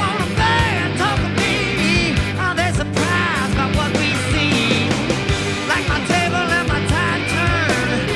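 Rock music with a singing voice, guitar and a steady drum beat.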